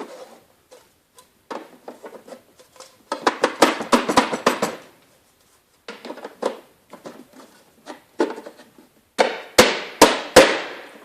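Plastic reel barrels being pushed into the slots of plastic reel flanges: hollow plastic knocks and clicks, with a quick run of clattering about three seconds in and three sharp knocks near the end as a barrel pops into place.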